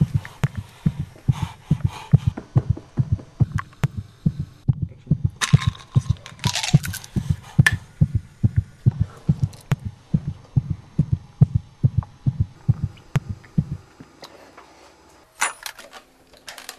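Heartbeat sound effect: quick, even low thumps, about three a second, that stop about fourteen seconds in. A burst of rustling noise comes in the middle, and a brief clatter near the end.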